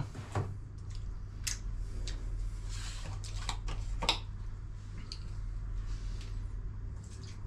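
Light clicks and knocks of kitchen things being handled: a hand blender set down in a batter dish and a carton picked up, over a steady low hum.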